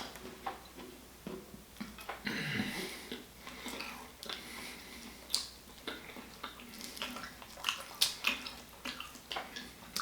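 A person eating buttery lobster close to the microphone: wet chewing and lip smacks with scattered small clicks, and a wetter squelchy stretch about two seconds in.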